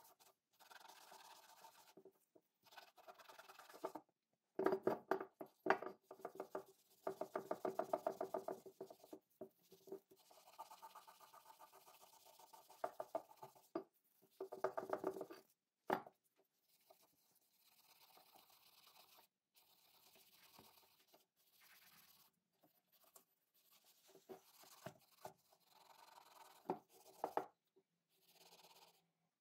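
Fast back-and-forth hand scrubbing along the rusty octagonal iron barrel of an antique musket, rubbing off rust. The strokes come in spells with short pauses between them.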